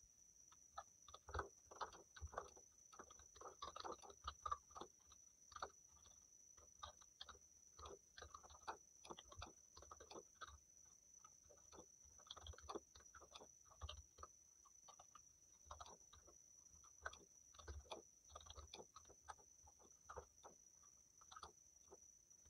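Fast, irregular typing on a Lapcare USB keyboard: faint key clicks in quick runs with short pauses between them.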